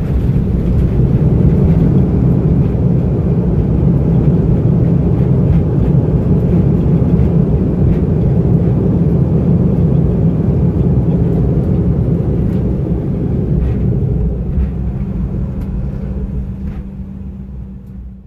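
Airliner cabin noise while rolling on the runway after landing: a steady low rumble of the jet engines and the wheels on the pavement. It fades away near the end.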